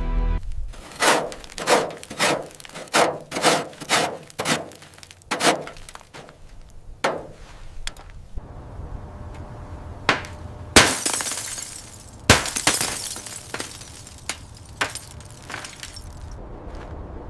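Hand-tool work on a rusted car body: a quick run of about a dozen sharp scraping strokes, then two louder crashes each followed by a long crackling trail.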